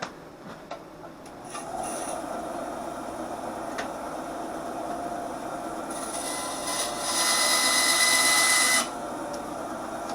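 A small power tool running steadily and cutting, growing louder and higher-pitched for about two seconds in the second half as it bites harder.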